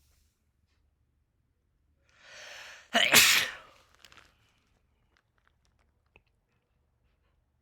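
A person sneezes once, about three seconds in, with a quick breath drawn in just before it.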